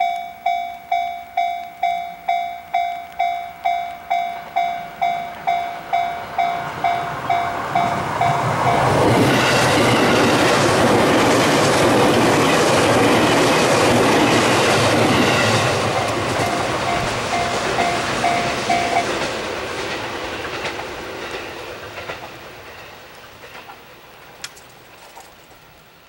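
Level-crossing warning bell ringing about twice a second; about nine seconds in, a 211 series electric train passes close by, its wheels clattering over the rail joints and drowning out the bell. The bell comes back faintly and stops, and the train's noise fades away over the last several seconds.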